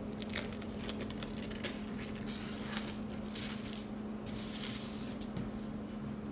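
Thin protective sheet being peeled off a laptop screen and handled: a run of irregular soft crackles and rustles for about five seconds, over a steady low hum.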